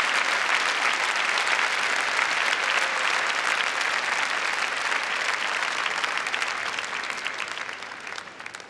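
Large audience applauding, the clapping fading away over the last two seconds.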